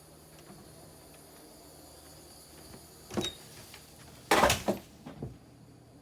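A door being opened: a short bump about three seconds in, then a louder clatter lasting about half a second, and a softer knock just after.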